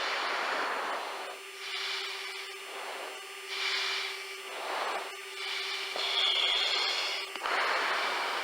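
A fighter pilot breathing into an oxygen-mask microphone over the cockpit intercom. Hissing breaths come and go about every second or so, over a steady hum.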